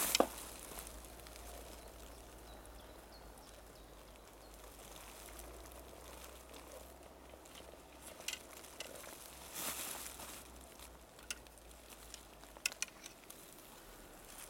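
Faint, steady crackling rustle of a swarming ant mound of pine needles, with a few sharp clicks and a brief louder rustle between about eight and thirteen seconds in.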